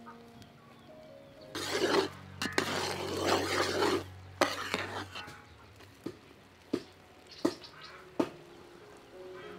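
Metal ladle stirring and scraping in an aluminium pot of simmering broth, loudest from about one and a half to five seconds in, followed by a few sharp metallic clinks. Soft background music runs underneath.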